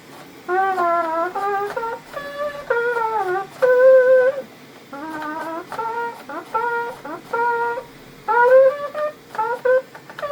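3D-printed rectangle trumpet, printed in PETG with a metal mouthpiece, playing a melody of short separate notes with one longer held note. Several notes slide downward in pitch.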